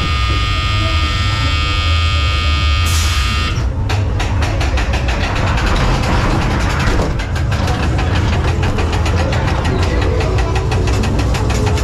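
Ghost train car running along its track with a deep, steady rumble. A held tone sounds for the first three seconds or so and is cut off by a sudden bright crash, then a fast clicking of about four or five a second runs on.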